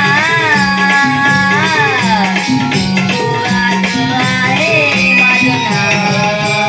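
A boy singing a Krishnaleela devotional song in long held notes that glide up and down, over a steady drum beat and rattling percussion.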